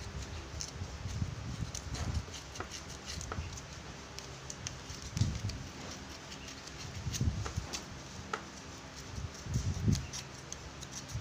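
Handling noise from a plastic cordless-drill battery pack being turned over in the hands: soft thumps, loudest three times, and scattered light clicks. The drill motor does not run; the battery is dead.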